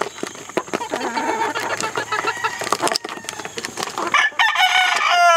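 A flock of young chickens clucking while pecking at feed, with many short, sharp pecking clicks. About four seconds in a rooster crows, a long call that is the loudest sound.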